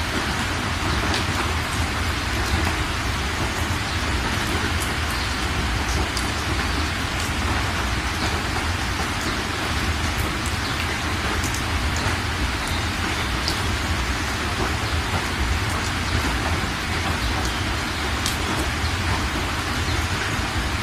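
Heavy rain pouring steadily onto a street and roofs, with scattered close drop ticks and a steady low rumble underneath.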